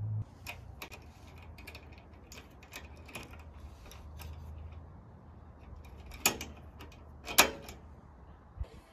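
Small metallic clicks and clacks of the stainless over-centre latch on a Front Runner quick-release awning mount being worked on a roof rack, with two sharp, louder snaps about six and seven seconds in as the latch is clamped shut.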